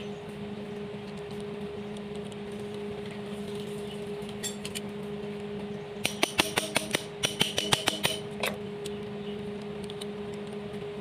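T-handle socket wrench worked on a bolt at the top of a Komatsu four-cylinder engine, giving a quick run of metallic clicks and clinks from about six to eight and a half seconds in. A steady hum runs underneath.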